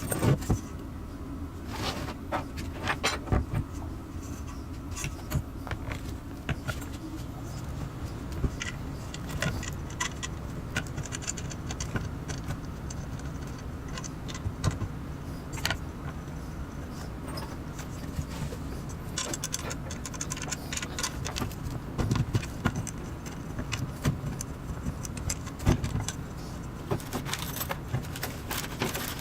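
Metal parts of a 3D printer kit being handled, with scattered clinks, clicks and knocks over a steady low hum.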